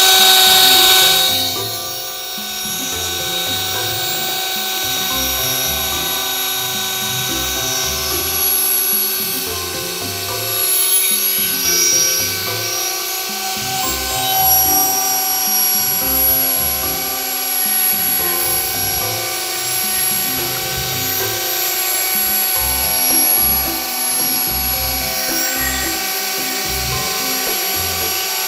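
Electric drill with a polishing pad running steadily as it compound-polishes a plastic headlamp lens, a steady motor whine, with background music laid over it.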